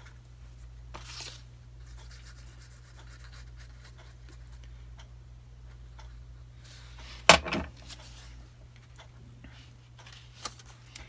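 Quiet rubbing and handling of paper and cardstock while white craft glue is spread on a paper flap, with a sharp knock about seven seconds in and a smaller one just after.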